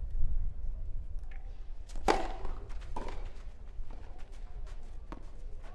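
Tennis ball struck by racket strings during a rally: a few sharp pops, the loudest about two seconds in, with fainter hits or bounces about a second and three seconds later.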